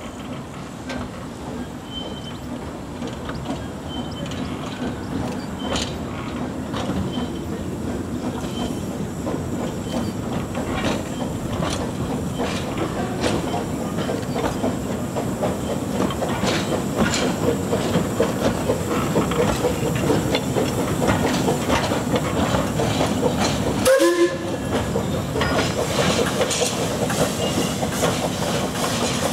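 Narrow-gauge 0-4-2T steam locomotive No. 7 'Tom Rolt' hauling a rake of empty four-wheeled coaches at low speed. The wheels clatter and click over the rail joints and pointwork, growing louder as the train draws past.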